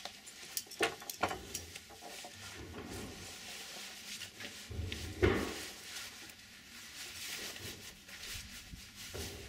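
Climbing harnesses and gear being put on: scattered light clicks and knocks of buckles and hardware with rustling of webbing, and a louder brief sound about five seconds in.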